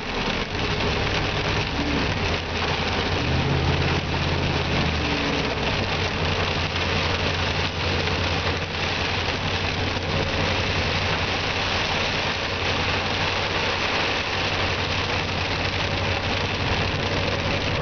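Vehicle engine running steadily, heard from inside the cabin, under a constant wash of rain and wet-road tyre noise. The engine's low tone strengthens briefly between about three and five seconds in.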